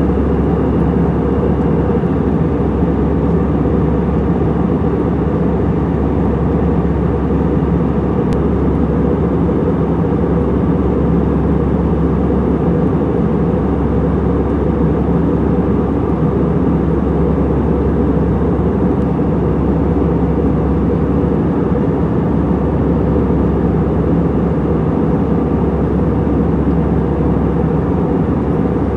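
Airbus A320-200 cabin noise in cruise heard from inside the cabin: a steady, loud, deep rush of engine and airflow noise with a low hum, unchanging throughout.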